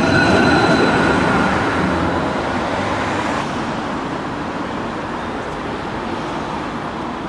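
Low-floor tram rolling past close by, its wheels running on the rails with a thin whine that fades out early on. About three and a half seconds in, this gives way to quieter, steady street traffic noise.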